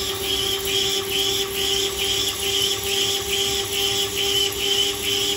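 CNC lathe turning a 4140 steel ring with a carbide insert under flooding coolant: a steady machine hum with coolant splashing, and a higher scraping sound that pulses evenly about twice a second.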